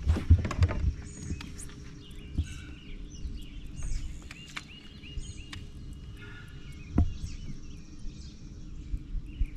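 Songbirds chirping and whistling in short repeated calls over a steady low rumble, with a few sharp knocks and clicks, the strongest right at the start and about seven seconds in.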